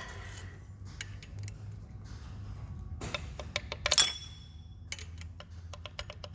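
Hand tools and metal parts clicking and clinking during work on an engine, with one louder ringing metal clink about four seconds in, over a low steady hum.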